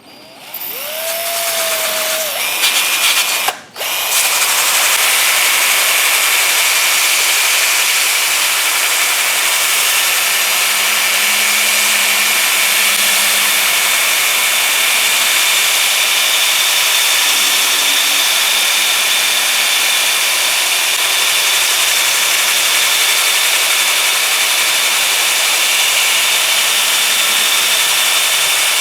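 Electric drill spinning a 3-inch 80-grit sanding disc against rough, weathered wood. It speeds up with a rising whine, cuts out briefly about three and a half seconds in, then runs as a steady loud sanding noise.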